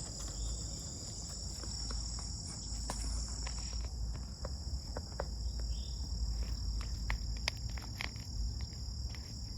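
Insects trilling in a steady, high-pitched chorus, with scattered light clicks and a low rumble underneath.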